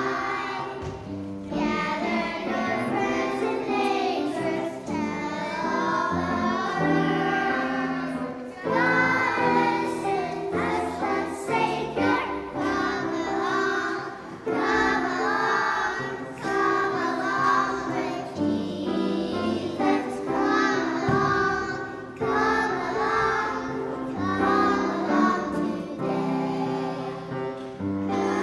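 Choir singing a song together with instrumental accompaniment.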